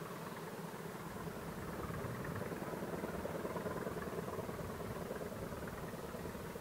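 Class 20 diesel locomotive's English Electric engine running at a distance, a steady rumble that swells a little a couple of seconds in.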